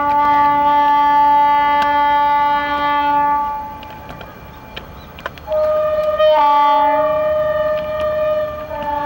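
Air horn of an approaching ALCO RSD16 diesel locomotive sounding two long blasts. The first cuts off a few seconds in. The second starts about two seconds later and changes pitch shortly after it begins.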